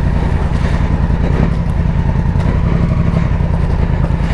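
Motorcycle engines running steadily at low speed, with clatter from the bikes rolling over ice chunks and through puddles.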